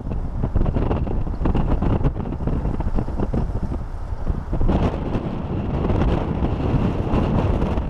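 Storm wind buffeting the microphone in gusts, over choppy seawater washing across a flooded quayside.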